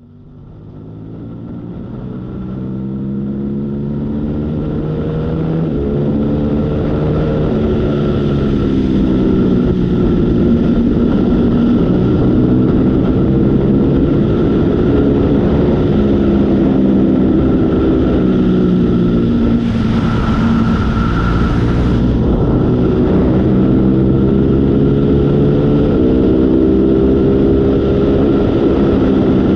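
Motorcycle engine running under way, its note climbing and dropping back several times, with steady wind and road noise. The sound fades in over the first few seconds.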